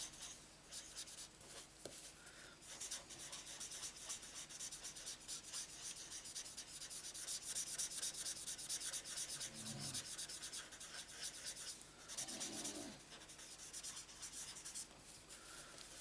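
Marker tip scratching and rubbing over card stock in quick, repeated short strokes as a paper butterfly is coloured in.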